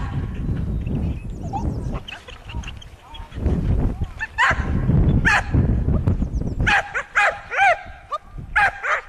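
Dog barking in short, sharp, high-pitched barks: a couple of single barks a little before halfway, then a quick run of them in the second half, over a low rumble.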